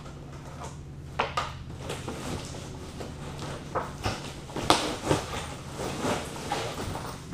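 Handling noise from a compartment in a bed base being opened and a folded fabric heat-chamber cover being pulled out: scattered knocks and rustling of the material, the sharpest knock about two-thirds through, over a steady low hum.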